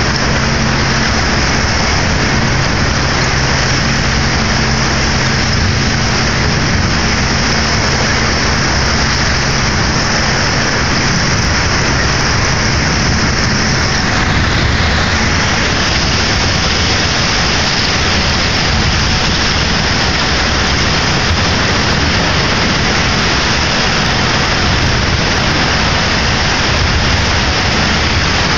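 Ferry's engine running steadily, with a loud, even hiss of churning water and broken ice along the hull.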